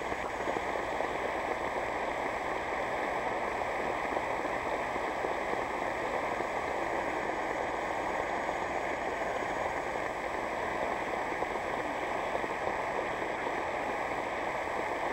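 Audience applauding, a dense, steady clapping that comes in as soon as the music stops.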